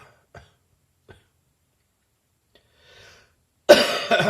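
A person with bronchitis coughing: after a quiet gap and a faint breath in, a sudden harsh cough comes near the end, its voiced tail falling in pitch. The uploader calls it a much drier cough now that the bronchitis is clearing.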